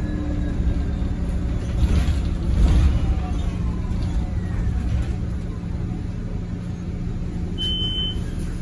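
Cabin sound of a Nova Bus LFS hybrid-electric city bus under way: a steady low rumble from its diesel-electric drivetrain and the road, with a louder jolt about two to three seconds in. Near the end a short, high electronic chime sounds once: the stop-request signal.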